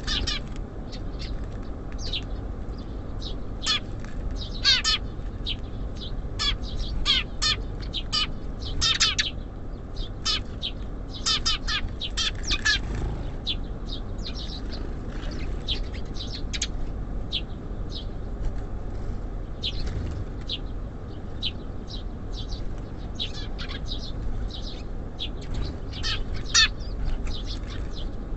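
Small songbirds chirping: many short, sharp calls, some in quick runs, scattered throughout. A steady low rumble lies underneath.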